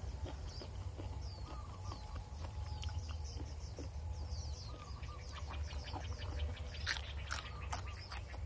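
Small birds chirping repeatedly over a low steady rumble, with close-up chewing and a few sharp crunches near the end as raw vegetables are bitten.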